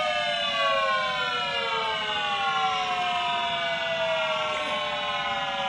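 Milton Bradley Star Bird toy spaceship's electronic engine sound, a buzzy whine with many overtones, falling slowly and steadily in pitch as the ship is brought back down.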